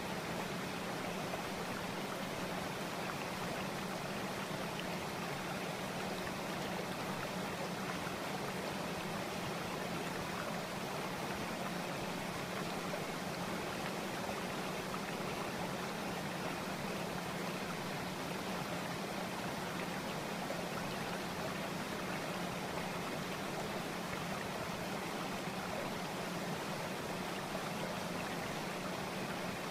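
Steady, unchanging rushing noise like running water, with a faint steady hum underneath.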